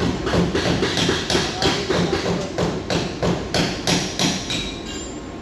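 Hammer blows on sheet metal, an even run of about three strikes a second that stops about four and a half seconds in, each blow ringing briefly: body work straightening a crash-damaged panel.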